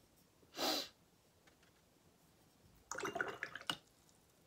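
A short sniff near the start, then a paintbrush swished and tapped in a glass jar of rinse water about three seconds in, with a run of small clinks and splashes against the glass.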